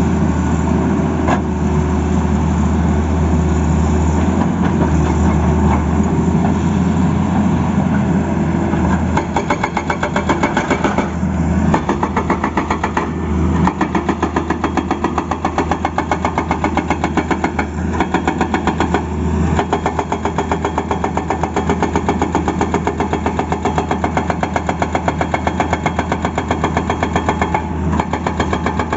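Tata Hitachi excavator's diesel engine running steadily with a deep hum; about a third of the way in the sound takes on a fast, even pulsing, about three beats a second, that carries on to the end.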